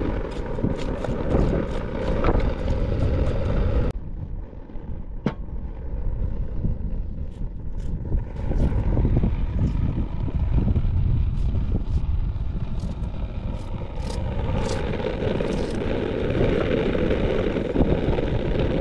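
Wind buffeting the microphone with a heavy, gusting rumble, mixed with scattered clicks, scrapes and clatter of food and utensils being handled in a pan on a portable gas stove.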